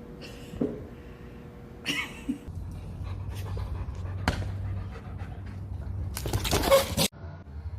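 A dog panting, with breathy bursts and a louder rush of breath near the end that cuts off suddenly.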